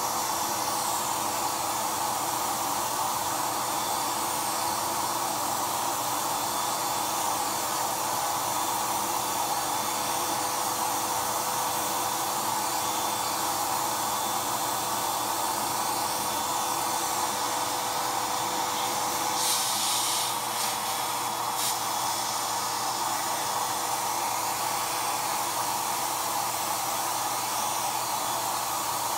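Wagner Home Decor electric paint sprayer running steadily while spraying paint: a steady motor drone with a rush of air. A brief sharper hiss comes about twenty seconds in.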